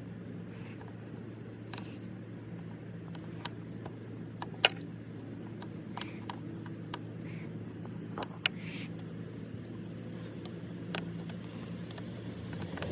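Scattered sharp clicks and ticks of a screwdriver loosening the small screws on a leaf blower's plastic primer-bulb cover, over a steady low hum.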